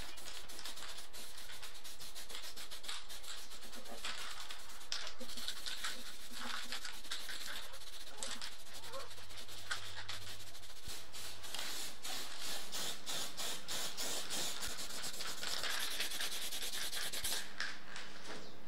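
Aerosol spray-paint can hissing in a run of short bursts.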